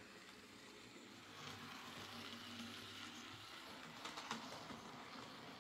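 Hornby Class 4F OO gauge model locomotive, with its motor in the loco itself, running along the layout track: a faint whir and wheel noise that builds about a second in, with a few light clicks about four seconds in. This is its test run after its melted wiring was replaced.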